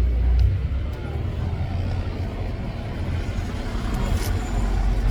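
Street traffic: motor vehicles running and passing close by, with a steady low engine rumble.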